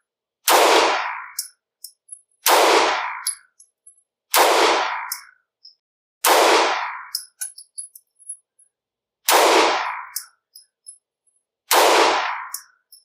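Taurus TH9C 9mm compact pistol fired six times in slow, deliberate shots about two seconds apart, each a sharp report with a short decaying tail. Faint light clinks fall between the shots.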